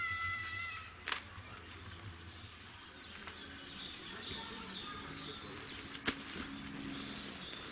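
Songbirds chirping in quick, downward-sweeping calls, busiest in the second half. A steady whistle-like tone fades out in the first second, and there are two sharp clicks, about a second in and about six seconds in.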